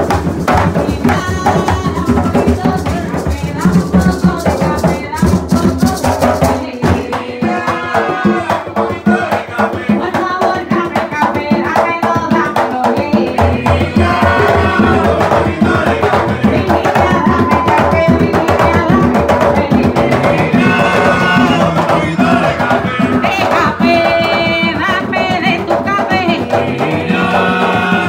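Bomba music played live: hand-struck barril drums keep a dense, steady rhythm, with a singer's voice over the drumming for most of the time.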